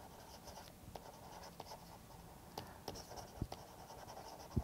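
Faint scratching and light taps of a stylus writing on a tablet, as handwritten words are added stroke by stroke, with a few sharper taps in the second half.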